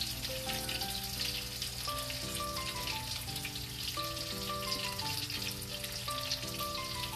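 Steady sizzle of food frying in hot oil, under background music: a simple melody of held notes.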